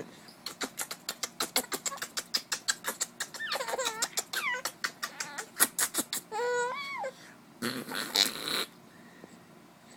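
A 20-week-old baby giggling while being tickled: a quick run of short breathy laughs, then high squeals that rise and fall, and a longer breathy burst near the end.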